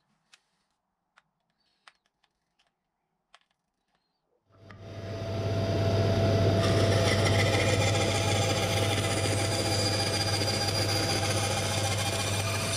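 A few faint clicks, then a bandsaw is switched on about a third of the way in, spinning up within a second or so to a steady hum with a constant whine, and runs while its blade cuts a plywood board.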